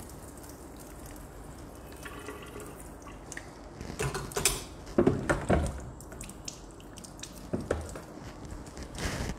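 Kitchen tap running into a sink with water splashing and dripping as hands work under it, with a few sharp knocks of things against the sink, the loudest about halfway through.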